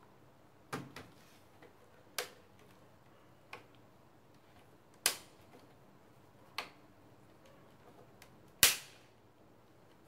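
Plastic side locks of an HP 15 laptop's bottom case snapping into place as its edges are pressed: about seven sharp, irregular clicks, the loudest near the end.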